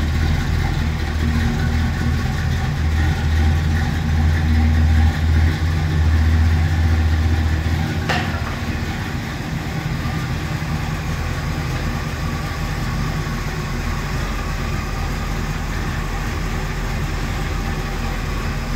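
1968 Pontiac Parisienne's 396 cubic-inch V8 idling steadily with a deep low rumble. About eight seconds in there is a short sharp click, after which the low rumble is noticeably weaker but the engine keeps idling evenly.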